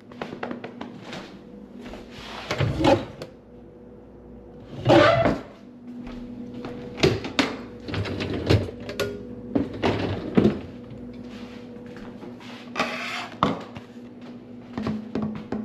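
Kitchen handling noises: a dishwasher door and rack are opened and handled, with dishes clattering and a string of knocks and clunks, the loudest about five seconds in. A papery rustle comes near the end.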